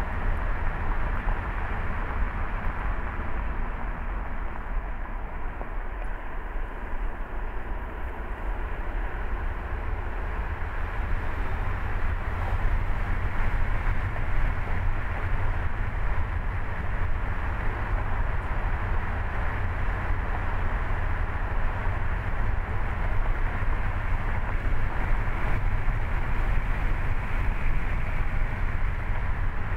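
Steady deep rumble and road noise of a car driving along a city street, a little louder from about twelve seconds in.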